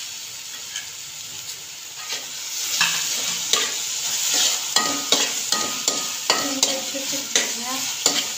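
Metal slotted spatula stirring and scraping grated carrot and apple halwa in a stainless steel pan as it fries, with a sizzle underneath. The sound starts as a quieter sizzle, then from about two and a half seconds in come quick repeated scrapes of metal on the pan, a few a second.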